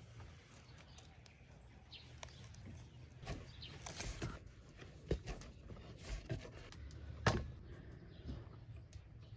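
Quiet outdoor ambience with a few faint bird chirps and scattered small clicks and knocks; the loudest knock comes about seven seconds in.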